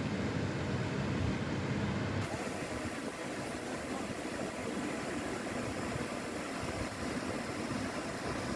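A low rumble at first, then from about two seconds in the steady hiss of a river fountain's many water jets spraying and splashing down onto the water.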